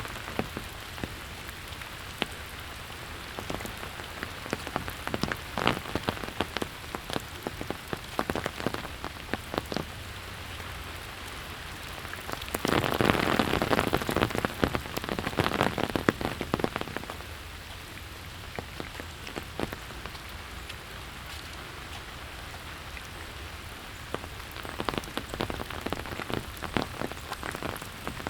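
Steady rain falling, with many close, sharp drop ticks scattered through it. About halfway through the rain noise swells louder and fuller for a few seconds before settling back.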